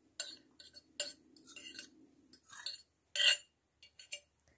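A metal fork scraping and clinking against a glass bowl as a marinade is scraped out over chicken in a metal baking tray: a string of short, sharp clinks and scrapes.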